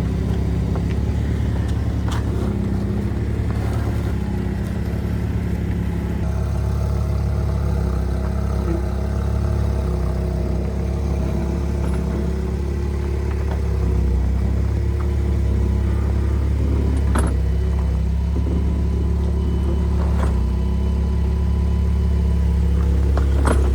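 A vehicle engine idling steadily for the whole stretch, getting slightly louder about halfway through, with a few light clanks.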